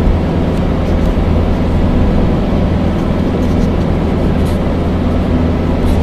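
Car driving along a country road, heard from inside the cabin: a steady low drone of engine and road noise.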